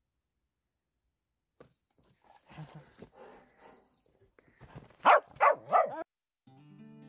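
Small dog whining softly, then giving three short, loud barks in quick succession about five seconds in, pestering for attention.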